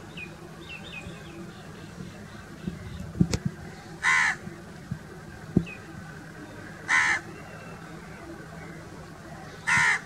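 House crow cawing: three loud, short caws, each about three seconds apart.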